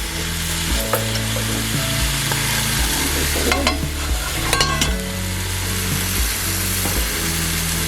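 Food sizzling and frying in a pan, a steady hiss, with a few sharp clicks of a utensil against the pan around the middle. A soft background tune with a stepping bass line runs underneath.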